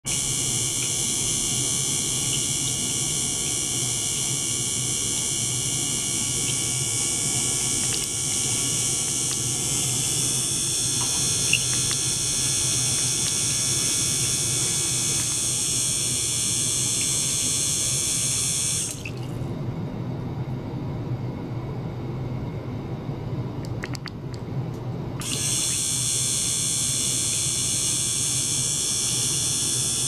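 Small ultrasonic cleaning bath running with water pumped through tubing and trickling into a glass beaker: a steady watery hiss with a high-pitched whine over a low pump hum. The high-pitched part cuts out for about six seconds about two-thirds of the way in, then comes back, while the low hum keeps going.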